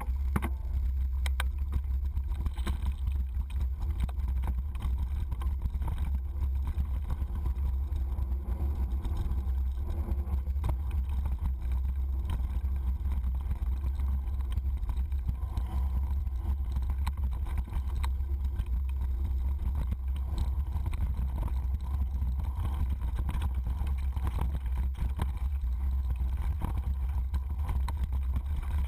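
Mountain bike rolling fast down a dirt trail, heard from a camera on the bike's stem: a steady deep rumble of wind and trail vibration, with scattered clicks and rattles from the bike.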